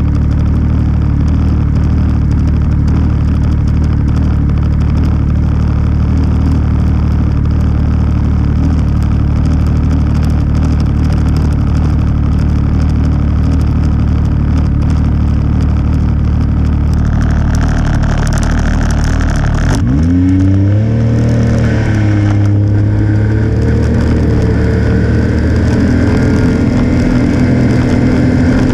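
Vehicle engine idling steadily, then revving with a sharp rise in pitch about twenty seconds in as the vehicle moves off, its note rising and falling as it gathers speed.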